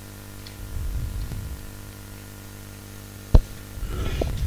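Steady mains hum on the recording, with low rustling and bumping handling noise about a second in and again near the end, and one sharp click about three and a half seconds in.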